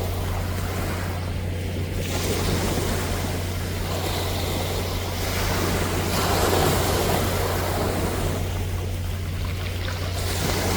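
Sea waves washing onto the shore, a steady wash of surf that swells about two-thirds of the way through, over a constant low hum.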